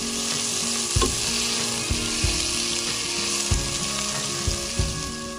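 Sliced onions sizzling steadily in hot oil in a pot while a silicone spatula stirs them.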